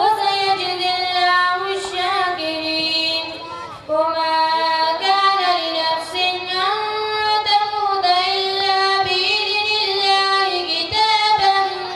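A boy chanting a melodic recitation solo and unaccompanied, holding long notes that slide between pitches, with short breath breaks about two and four seconds in.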